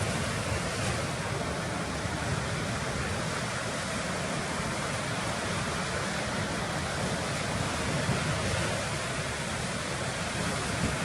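Ocean surf washing steadily, a continuous rushing noise with no distinct breaks.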